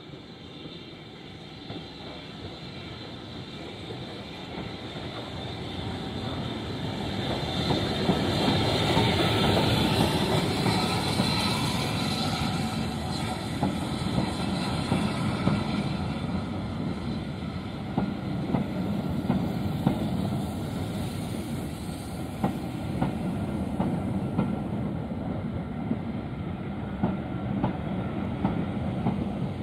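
Steam-hauled passenger train running slowly into a station, hauled by a British Railways Standard steam locomotive. It grows louder as it approaches and is loudest as the engine passes. The coaches then roll by, their wheels clicking over the rail joints every second or two.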